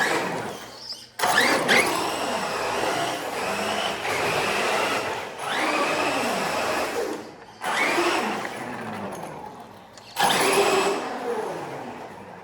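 Small electric motor of an RC car whining as it is throttled in several bursts, its pitch rising and falling with each run.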